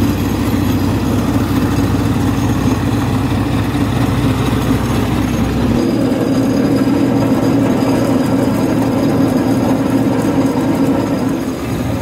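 Tractor engine driving a VIRDHI rice huller, running steadily as paddy is husked. The deepest rumble drops away about six seconds in.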